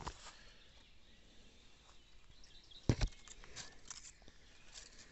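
Quiet woodland background with a few sharp clicks, the loudest a close pair about three seconds in.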